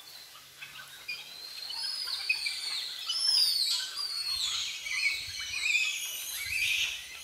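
A troop of capuchin monkeys calling: many overlapping high-pitched squeals and chirps, busiest in the middle.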